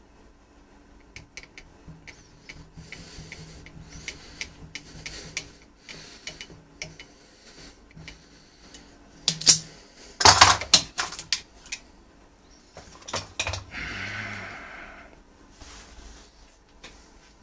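Steel locking pliers clicking and clanking on a rusted pistol barrel held in a vise, then being unclamped and set down. Scattered light metallic clicks, a cluster of loud clanks about ten seconds in, and a brief scraping rustle a few seconds later.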